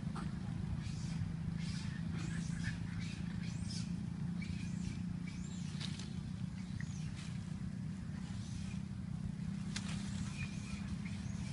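Leaves and thin branches rustling in short bursts as long-tailed macaques clamber through a small tree, over a steady low hum, with a few brief high chirps.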